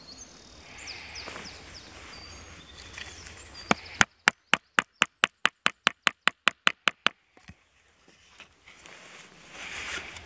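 Mora Bushcraft Black knife chopping into a wooden stick in a quick run of about fifteen sharp knocks, roughly four a second, starting about four seconds in and lasting some three seconds: the blade cutting out a notch.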